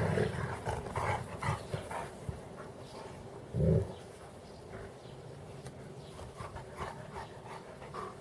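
Pyrenean Mountain Dogs play-wrestling, giving short, deep vocal sounds: a cluster in the first couple of seconds and one loud one about three and a half seconds in.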